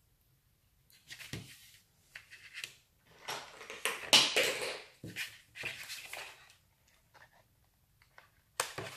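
Hands working double-sided tape and black cardstock: the tape strip pressed and rubbed down along the card's edge, the tape roll set down and the card piece picked up, in a run of short scratchy rustles with quiet gaps, loudest about four seconds in.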